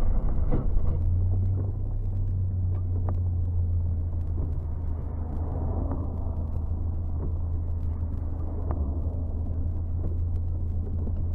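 Car driving: a steady low rumble of engine and road noise, with scattered faint clicks.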